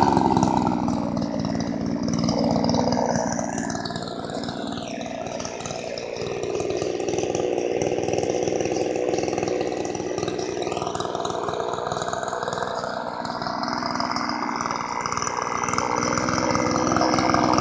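Vintage Craftsman chainsaw's two-stroke engine idling, its speed drifting slowly up and down.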